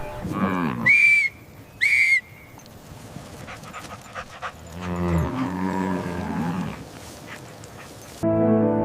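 A dog barks twice, about a second apart, near the start. Then a cow moos low for about two seconds. Music comes in just before the end.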